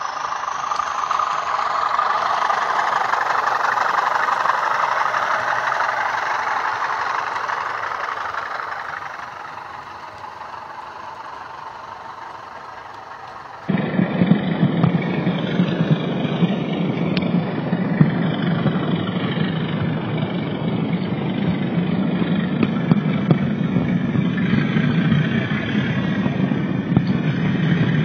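Model diesel locomotive engine sound from DCC sound decoders through small speakers. First a Class 20 pair's sound through double iPhone 'slim' speakers, swelling and then fading away over the first ten seconds or so; after a sudden cut about halfway through, another model diesel locomotive's engine sound, lower and louder, running steadily.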